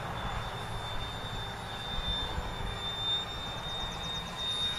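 Electric radio-controlled model airplane's motor and propeller giving a steady high-pitched whine as it flies, with a low rumble of wind on the microphone beneath.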